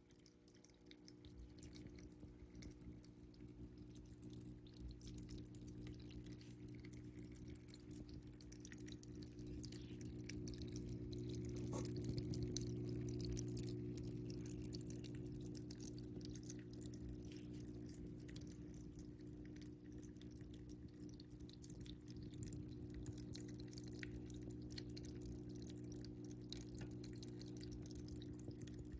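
Faint water dripping and trickling in a paludarium over a steady low hum, typical of its small circulation pump.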